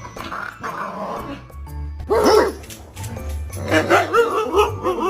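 A dog barking and yipping: one loud call about two seconds in, then a run of short, rising-and-falling yips toward the end, over background music with a steady beat.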